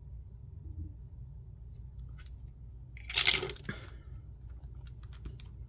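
Handling noise from nail polish bottles and a plastic swatch wheel being moved on a tabletop: a few light clicks, and a brief louder rustling scrape about three seconds in, over a low steady hum.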